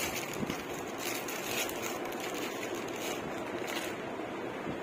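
Rustling and crackling of cotton cloth and plastic packaging being handled, in a few short bursts over a steady background hiss.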